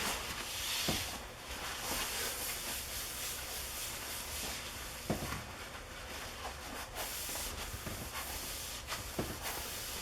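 Steady scrubbing hiss of something being rubbed by hand across the cast-iron table saw top, cleaning off rust and residue, with a few faint knocks.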